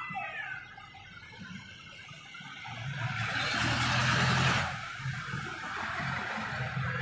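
A cat's drawn-out yowl trails off at the very start. About three seconds in, a loud hissing rush of noise builds for about a second and a half and cuts off, over a low steady hum.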